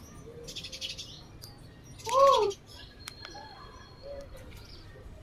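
Macaques giving short coo calls that rise and then fall in pitch: a loud one about two seconds in, with fainter ones before and after.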